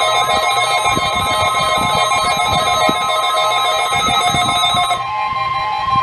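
Weather alert radio receivers sounding their electronic alert alarms together, set off by a NOAA Weather Radio required weekly test. Layered warbling and pulsing tones; the higher layer cuts off suddenly about five seconds in, leaving steady tones sounding.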